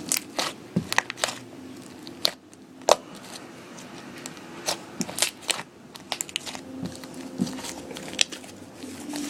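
Slime being mixed and squeezed by hand, giving irregular sharp clicks and crackles.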